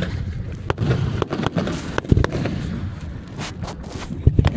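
Aerial fireworks going off: irregular sharp bangs and cracks, several close together, over a low rumble.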